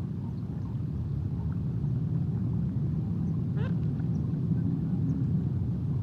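Steady low outdoor rumble, like distant traffic or wind on the microphone, with faint bird calls scattered through it and one short rising whistle about three and a half seconds in.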